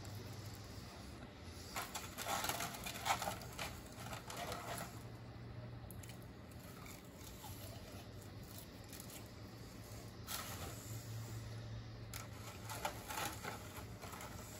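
Eating noises: chewing and nibbling in short clusters of small clicks and rustles, about two seconds in and again near the end, over a faint steady low hum.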